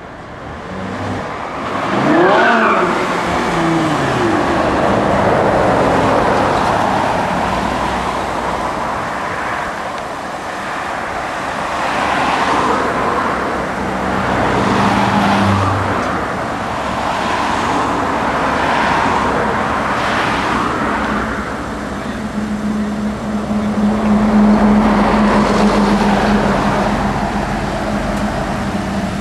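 Lamborghini Gallardo LP550-2's V10 engine revving as the car is driven around, with a sharp rev that rises and falls about two seconds in. The engine then swells and eases off several times, and settles into a steadier low drone near the end.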